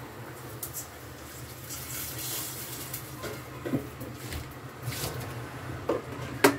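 Water poured from a plastic mineral-water bottle, with the plastic crackling as it is handled and squeezed, sharpest in a few short crackles near the end.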